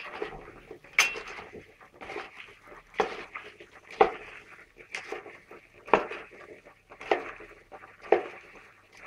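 Cut green broad beans being stirred in a stainless steel pot of olive oil: a utensil knocks against the pot about once a second, with the beans rustling and scraping between the knocks.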